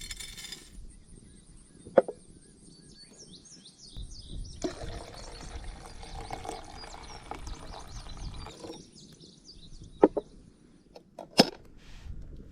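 Birds chirping and trilling, with a few sharp knocks: one about two seconds in and three close together near the end. A rustling, scraping noise runs for about four seconds in the middle.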